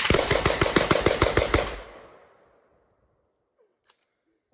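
A rapid string of gunshots from several guns firing at once in a speed drill, the shots overlapping. They stop abruptly about two seconds in and the echo fades away. A single faint click comes near the end.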